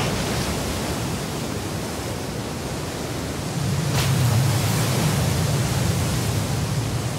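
Heavy surf breaking in a steady rush of water. About four seconds in comes a sharp crack, and the sound grows louder and deeper as a humpback whale's breach crashes down into the waves.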